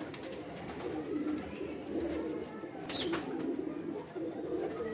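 Domestic pigeons cooing, a continuous low, wavering coo, with a sharp click about three seconds in.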